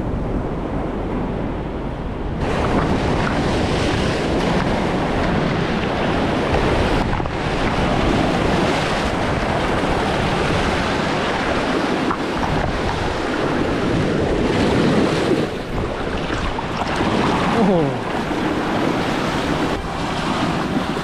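Waves washing against a jetty, with steady wind noise on the microphone that gets louder a couple of seconds in.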